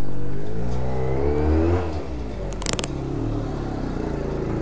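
Benelli 302S motorcycle's parallel-twin engine revving up and back down over the first two seconds, then running at a steady idle. A brief clatter about two and a half seconds in.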